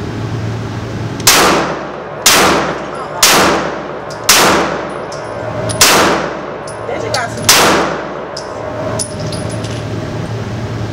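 A semi-automatic pistol fired six times, the first four shots about a second apart, then two more with longer gaps between them.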